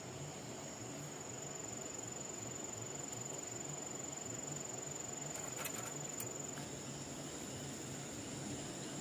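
Crickets chirring in one steady, high-pitched tone, with a couple of faint clicks a little past the middle.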